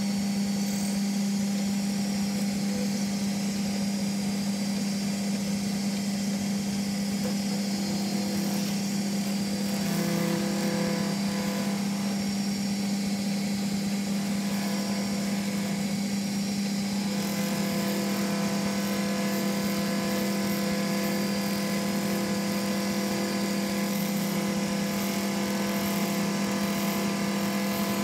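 Small engineer's lathe running at steady speed, its motor and drive giving a constant hum, while a cam is copy-turned from a pattern with a follower. The upper tones of the hum shift slightly about ten seconds in and again a few seconds later.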